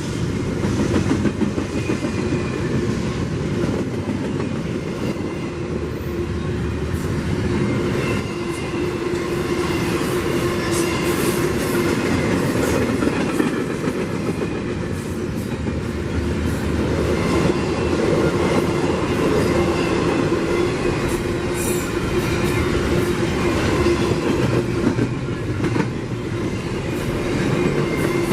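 A CPKC freight train's cars rolling steadily past, the wheels clacking over the rail, with a faint high wheel squeal now and then.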